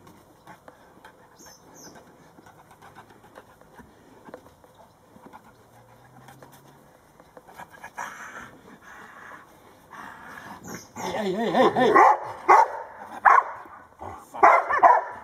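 Old English Sheepdogs barking in play: little for the first several seconds, then repeated bursts of barks from about eight seconds in, loudest in the last few seconds.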